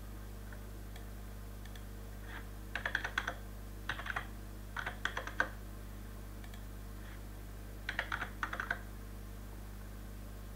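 Computer keyboard typing in short bursts of a few quick keystrokes: three bursts between about three and five and a half seconds in, and another about eight seconds in. A steady low electrical hum runs underneath.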